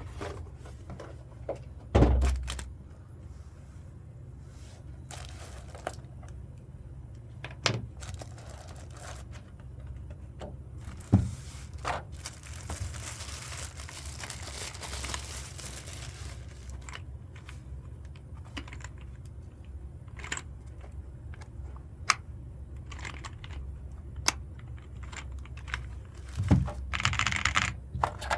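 Unboxing handling sounds: packaging crinkling and rustling, with scattered knocks as the keyboard and parts are handled and set down; the longest rustle comes about halfway through and another near the end.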